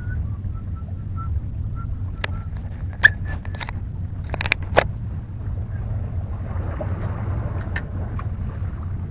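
Steady low rumble of wind buffeting the microphone. A few sharp clicks and crackles of handling come about two to five seconds in.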